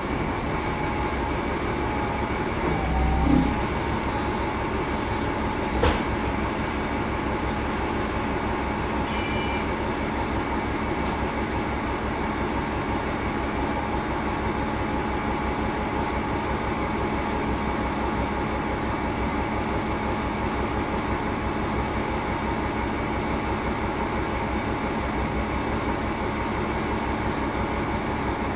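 Mercedes-Benz Conecto NGT city bus's M 936 G natural-gas engine and cooling fan running with a noisy, steady drone and a constant whine, heard from inside the cabin. A thump about three seconds in and a sharp click about six seconds in.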